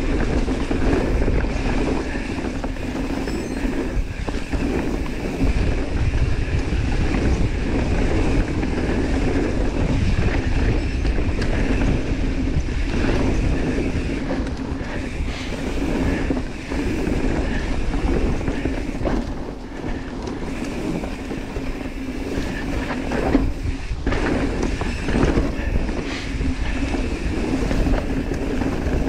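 Mountain bike descending a downhill trail: tyres rumbling over the ground and the bike rattling, with many short knocks from bumps.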